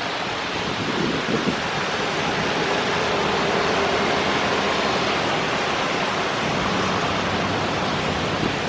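Steady wash of city traffic on a wet road: tyres hissing and engines of passing cars and motorcycles.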